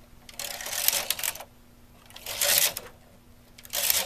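Carriage of a Brother bulky knitting machine pushed by hand across the needle bed, knitting one row per pass: three clattering passes, each lasting about a second, with short pauses between.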